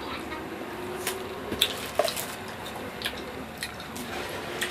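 Close-miked wet eating sounds of rambutan fruit: scattered short clicks and squishes of the juicy flesh in the mouth, the sharpest about a second and a half and two seconds in.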